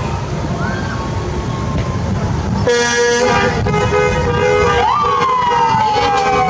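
Vehicle horns honking in repeated blasts from about three seconds in, over the low rumble of slowly passing cars. A siren gives a short chirp near the start and then, past halfway, wails up quickly and slowly falls away.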